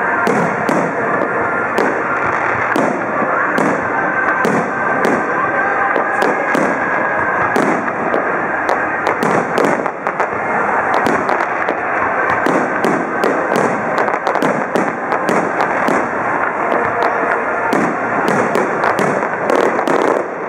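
Aerial fireworks display going off in quick succession: a continuous barrage of bangs and sharp pops, several a second, with no break.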